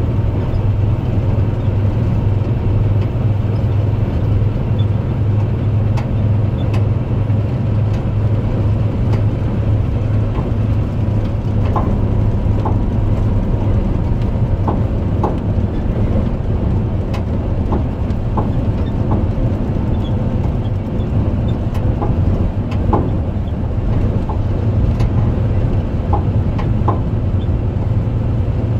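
Semi-truck heard from inside the cab at highway speed: a steady low engine hum and road noise, with scattered light ticks throughout.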